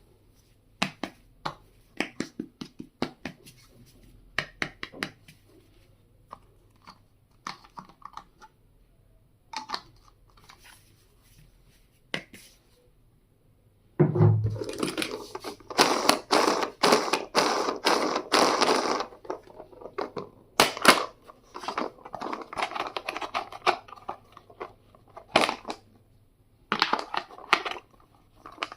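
Stationery being unboxed by hand: scattered clicks and taps as items are handled, then, about halfway through, longer bursts of crinkling and tearing packaging.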